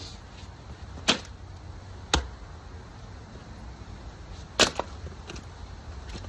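Milwaukee 26-inch splitting axe chopping a log of firewood: three sharp strikes, the first two about a second apart and the third, the loudest, a couple of seconds later.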